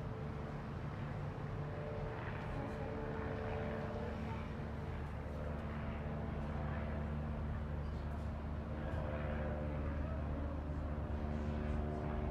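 Steady low machinery hum from the cruise ship, a drone made of several fixed low tones.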